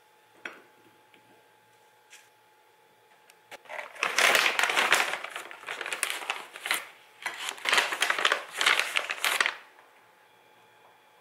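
Plastic bakery bag crinkling and rustling as it is opened and handled to take cube scones out, in a dense run of crackles lasting about six seconds from nearly four seconds in. A couple of faint taps come before it.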